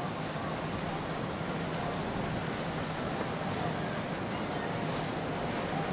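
Steady rush of water and wind with a low, even hum underneath, as from a boat moving on the water.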